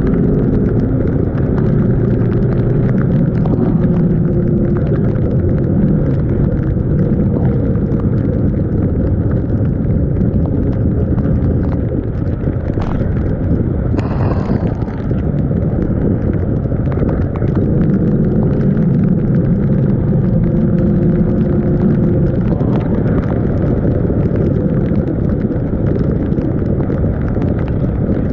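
Yamaha NMAX 155 scooter's single-cylinder engine running while riding, under heavy wind rush on the camera microphone. The engine's hum stands out clearly near the start and again about two-thirds of the way through.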